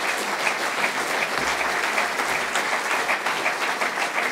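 Audience of a full hall applauding steadily, many hands clapping together.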